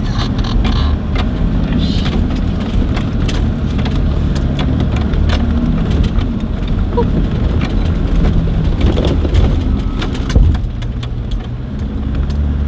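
Off-road vehicle's engine running steadily while driving over rough ground, with frequent knocks and rattles and a louder thump about ten seconds in.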